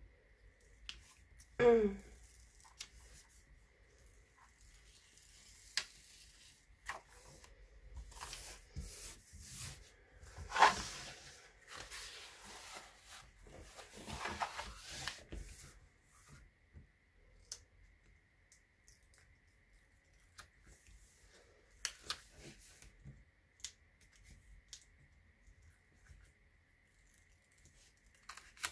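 Diamond painting canvases and their clear plastic cover film rustling and crinkling as they are handled, folded and peeled back, in irregular bursts, loudest about ten seconds in. A brief sound falling in pitch comes about two seconds in.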